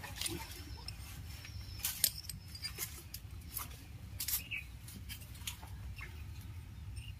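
Sparse light clicks and taps of metal parts being handled during engine repair work, over a faint steady low rumble.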